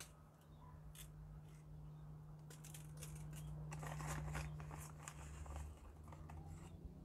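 Plastic bag crinkling and small stones clicking and trickling as they are tipped out of it onto a potted plant, busiest around the middle. A steady low hum runs underneath.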